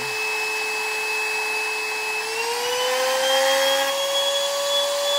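Trim router's universal motor running as a CNC spindle under a zero-cross AC speed controller, with a steady whine. A little over two seconds in, the whine rises smoothly over about two seconds and then holds higher as the router speeds up from about 26,000 RPM to its maximum of about 34,000 RPM.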